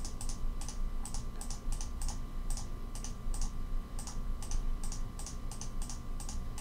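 Computer mouse clicking quickly and unevenly, about three clicks a second, as curves are picked one after another in a CAD program.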